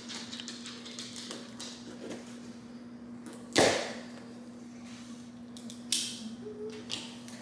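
Packing tape on a cardboard shipping box being slit with a small blade: one sharp swish about halfway through, then a few lighter taps and scrapes on the box, over a steady low hum.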